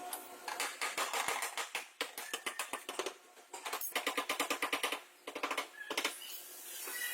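A tool striking rapidly in four bursts of about one to one and a half seconds each, roughly ten strokes a second, typical of body-panel repair work.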